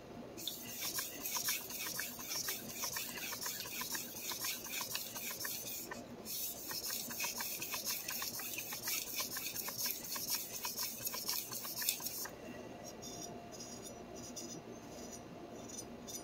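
Knife edge being stroked back and forth across a wet 4000-grit whetstone, a soft repeated rasping as the santoku's bevel is polished. It pauses briefly about six seconds in and turns quieter and duller after about twelve seconds.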